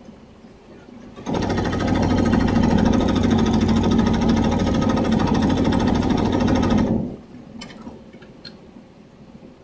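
Multi-head commercial embroidery machine starting up about a second in and stitching at a fast, steady rate, then stopping about seven seconds in, followed by a few light clicks.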